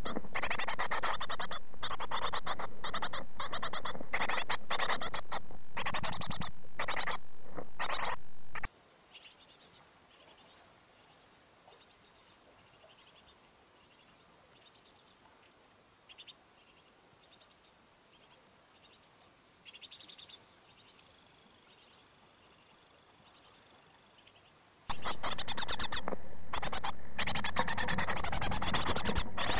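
Great tit nestlings begging inside the nest box, a dense run of rapid high-pitched calls. It breaks off about nine seconds in, leaving only faint scattered cheeps, and starts up again loudly near the end.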